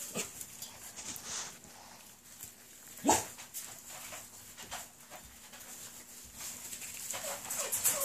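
Whippet puppies eating kibble from a metal pan, with small clicks and rustling from their mouths and paws in the wood shavings. About three seconds in, one puppy gives a single short yelp that falls in pitch.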